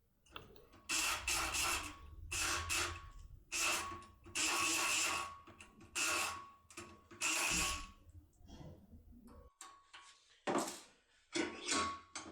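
Electric pick gun (Multipick Kronos) buzzing in a series of short bursts, each up to about a second long, as it vibrates the pins of a Cisa lock cylinder. The bursts come thickly in the first eight seconds, with two more near the end.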